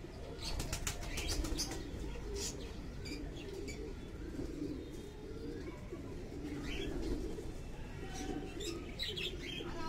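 Highflyer tumbler pigeons cooing in low, wavering rolls. Brief sharp high sounds come through about a second in and again near the end.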